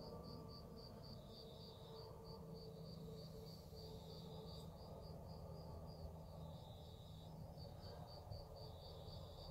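Night insects, likely crickets, chirping faintly: one chirping steadily about four times a second, another giving short trills every two to three seconds.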